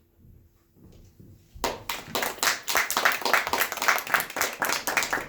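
Audience applauding, many hands clapping together, starting suddenly about a second and a half in after a near-quiet pause.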